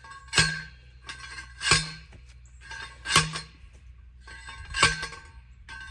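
Heavy metal-on-metal strikes, five of them at an even pace of about one every one and a half seconds, each ringing briefly: a steel fence post being driven in.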